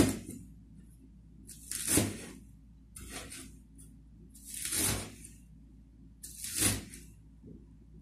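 Cleaver chopping scallions and coriander on a wooden cutting board: about five slow, separate strokes, one every second or two.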